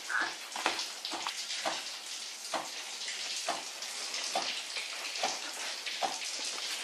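Footsteps on a concrete floor, about one a second, over a steady hiss.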